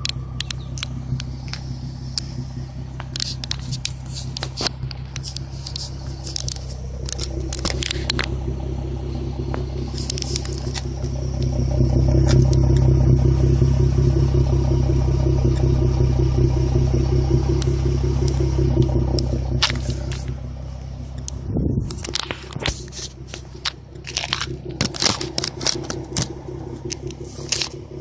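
2012 Ford Mustang's 3.7-litre V6 with a Pypes cat-back exhaust idling steadily, louder for several seconds in the middle while the microphone is under the car by the exhaust. Clicks and scrapes from the phone being handled run throughout.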